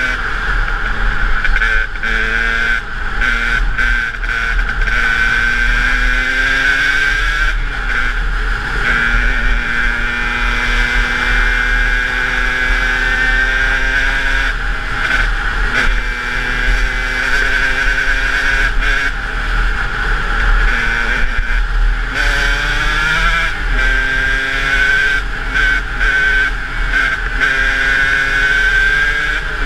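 KTM 125 EXC two-stroke enduro engine revving under way, its pitch climbing through each gear and dropping sharply at the shifts, several times over, with brief throttle lifts in between.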